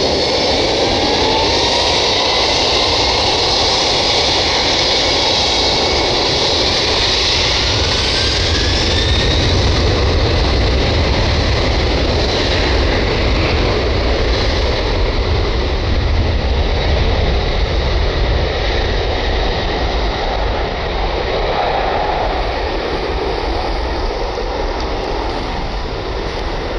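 Twin-engine jet freighter's turbofan engines at take-off power on a wet runway: a whine rising in pitch over the first several seconds under a steady roar, with a deep rumble building through the middle as the aircraft accelerates down the runway.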